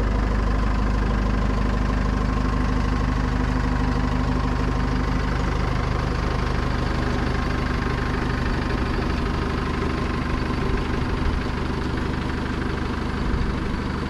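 Four-wheel-drive ute's engine idling steadily while the vehicle reverses slowly, backing a boat trailer into the water.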